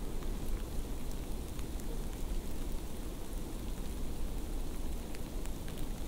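Soft, steady rain-like hiss with scattered faint ticks and drops.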